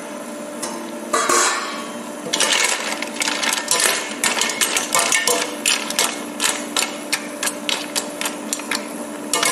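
Mussel shells clattering and a metal spoon knocking against the sides of a stainless steel pot as the cooked, opened mussels are stirred. There is a scraping rush about a second in, then a run of quick knocks and clinks, several a second, over a steady low hum.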